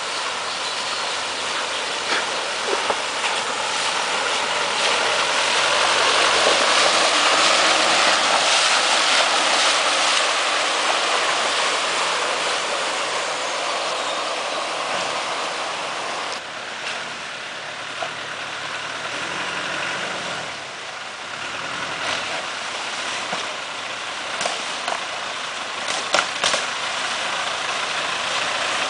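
Off-road 4x4 engines running at low speed as the vehicles crawl through a shallow stream, with water splashing and sloshing around the tyres. A few short sharp clicks near the end.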